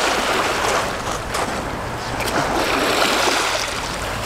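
Sea surf washing onto the shore, a steady rush of breaking waves that rises and falls, with wind buffeting the microphone.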